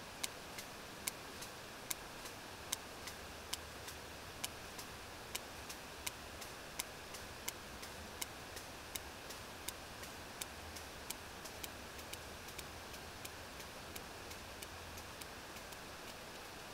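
Sperm whale echolocation clicks on a deep-water hydrophone recording: a regular train of sharp clicks, the loud ones a little under one a second with fainter ones between, over steady hydrophone hiss. These are the usual clicks of a whale foraging at depth as it closes on a squid.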